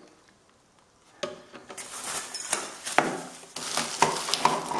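Plastic packaging crinkling and rustling, with sharp clicks and knocks of plastic parts being handled. It starts about a second in.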